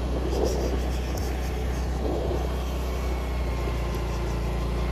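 Motorcycle engine running steadily with an even low hum while riding at a constant speed, with road and wind noise over a wet concrete road.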